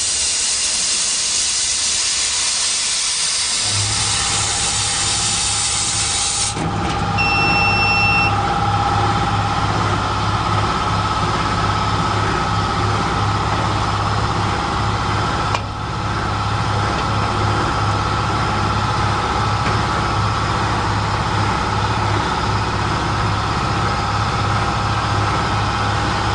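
A CO2 laser cutter's loud steady hiss during the cut, which cuts off sharply about six seconds in as the job ends. Under it a low steady machine hum starts just before and runs on, with a short beep just after the hiss stops and a single click about halfway.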